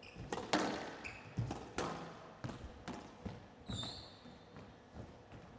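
A squash rally: the ball is struck by rackets and hits the court walls in a series of sharp knocks, roughly one every half second to second, with the short high squeak of court shoes twice.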